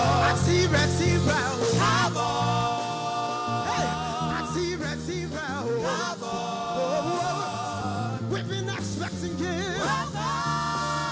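Live gospel worship music: held keyboard chords over a bass line, with a singer's wordless, wavering runs above.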